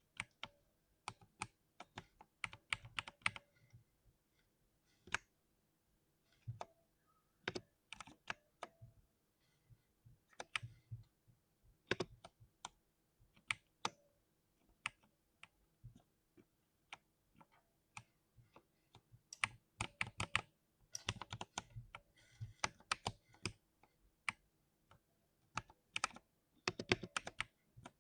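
Oiled 60% mechanical keyboard being typed on: irregular keystrokes in short bursts, with quicker runs of typing a little past two-thirds of the way in and again near the end.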